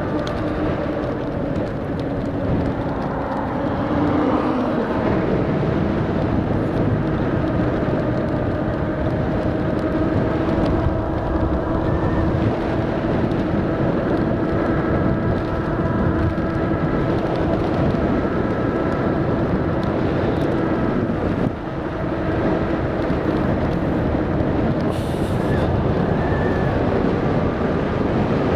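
Electric dirt bike's motor whining steadily under way, its pitch climbing a little in the first few seconds as it picks up speed, with wind and road rumble over the microphone.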